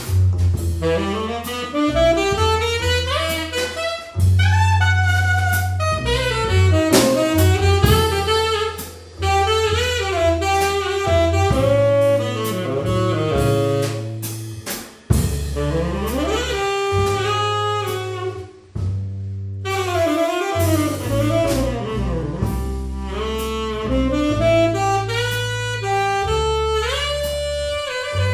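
Live jazz: a tenor saxophone plays a fast, winding melodic line with bending notes, over double bass and drums with cymbal strokes. The saxophone breaks off briefly between phrases a few times.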